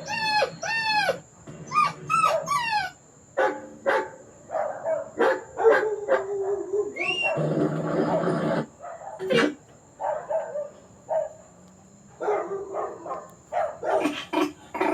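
A dog whining and yelping in a run of short cries that rise and fall in pitch, with a short burst of noise about halfway through.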